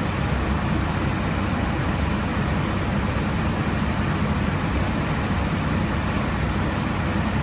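Steady airflow and engine noise inside an airliner in cruise flight, an even, unchanging low rush.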